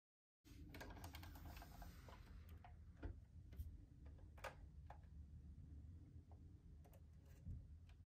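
Faint scattered clicks and taps over a low steady hum, starting and cutting off abruptly.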